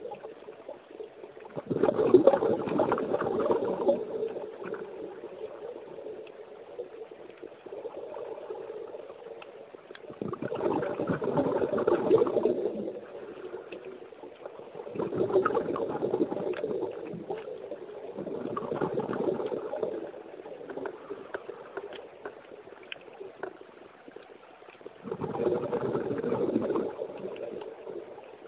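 Scuba diver's exhaled bubbles leaving the regulator, picked up underwater: five bubbling bursts of about two seconds each, one per breath, with quieter stretches between.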